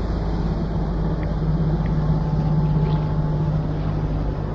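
Steady low hum of a boat motor over wind and water noise, with a few faint ticks.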